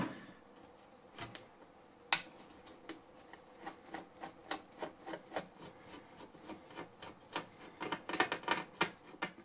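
Irregular clicks, taps and light scraping of hand tools and metal parts on an old valve radio's metal chassis as a redundant earth wire is worked loose and removed. The clicks come faster near the end.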